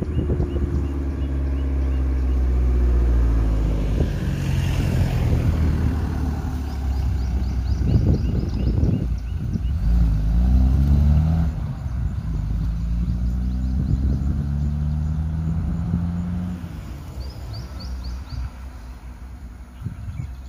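Car engines running at low speed close by, the pitch rising and falling as a car edges slowly up and moves on; the engine sound fades near the end. Faint bird chirps in the background.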